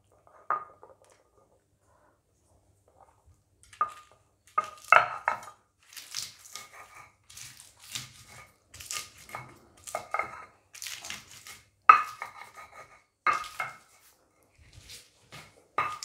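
Stone pestle (ulekan) pounding and grinding cut green chilies in a stone mortar (cobek): irregular stone-on-stone knocks and scrapes. There is one knock early, then steady grinding strokes from about four seconds in.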